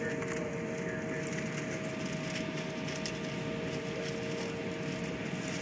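Jet airliner cabin noise while taxiing: the steady rumble and hiss of the engines at ground idle and the cabin air, with two steady whining tones held throughout.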